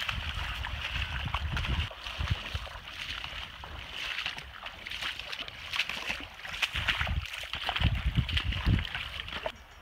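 Hikers' legs and boots splashing and sloshing through shallow river water as they wade, with low gusts of wind buffeting the microphone. The sound stops abruptly near the end.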